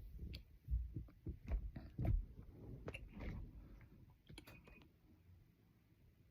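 Soft low thumps and small clicks from a person stirring close to the microphone, about six in the first three seconds, then fading to a few faint clicks.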